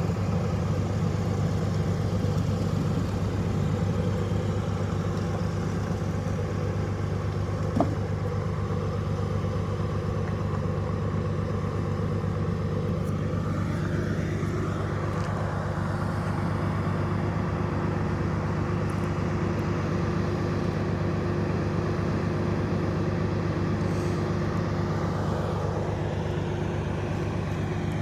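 Heavy diesel engine idling steadily, with a single sharp click about eight seconds in.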